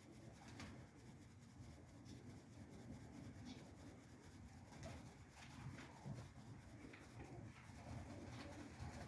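Near silence: faint outdoor background with a low rumble and a few faint ticks.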